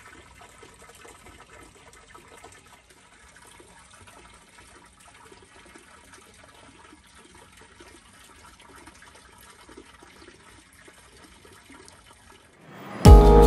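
Wall fountain's metal spout pouring a thin, steady stream of water into a stone basin, a faint trickle and splash. Loud music cuts in suddenly near the end.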